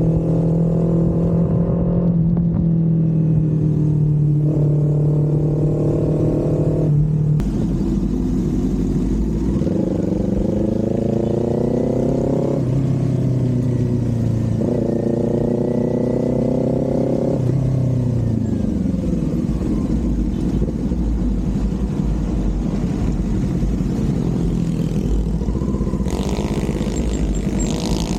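Kawasaki Z400's parallel-twin engine and exhaust under way. It holds a steady note, then revs up in two rising pulls, each dropping as the next gear goes in, before settling into a steadier cruise.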